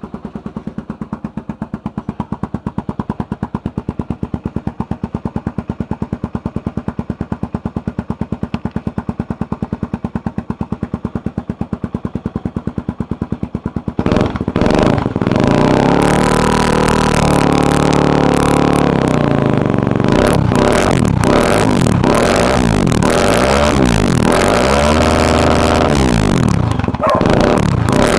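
Honda XR250 Tornado single-cylinder four-stroke engine through a Pro Tork 788 aftermarket exhaust, idling with an even pulsing beat. About halfway through it is revved hard, its pitch rising and falling again and again, with a few quick blips near the end.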